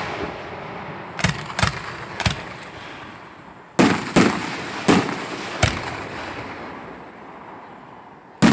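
Aerial firework shells bursting overhead: about eight sharp bangs at uneven intervals, several close together, each trailing off in a rolling echo.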